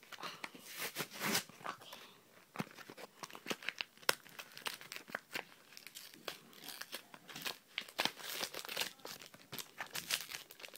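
A Yu-Gi-Oh booster pack's foil wrapper crinkling and tearing as it is opened by hand, in a run of irregular crackles.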